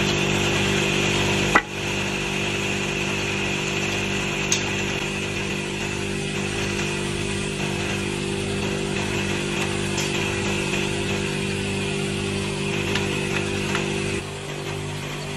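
Woodworking saw/planer machine running steadily without cutting, a constant motor hum. A loud knock of wooden boards comes about one and a half seconds in, with a few lighter knocks later. Near the end the hum drops in level and changes.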